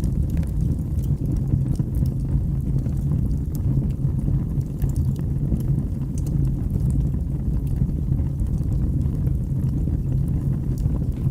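Wood fire burning in a fireplace: a steady low rumble with faint, irregular small crackles.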